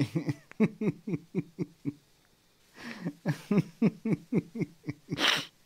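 A man's stifled laughter muffled behind his hand: a quick run of short pitched pulses that trails off, a brief pause, then more pulses and a breathy gasp near the end.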